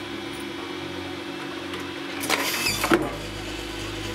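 A can of cola is released inside a homemade wooden vending machine: a short rattle a little over two seconds in, then a single loud knock as it drops into the dispensing tray. A steady hum runs underneath.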